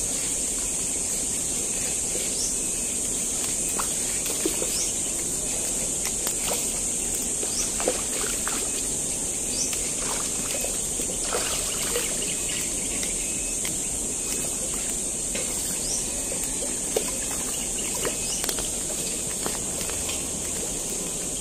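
Steady high-pitched insect drone over low water sloshing at the pond's edge, with scattered small clicks and brief bird chirps.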